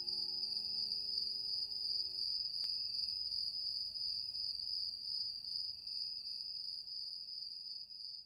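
Crickets chirping steadily, high-pitched and slowly fading, as night ambience; under them the last low held notes of soft music die away about two seconds in.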